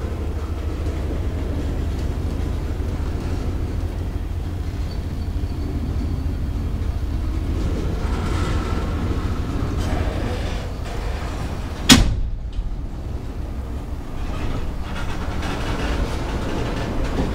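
Freight train cars rolling past: a steady low rumble of steel wheels on the rails, with one sharp bang about twelve seconds in.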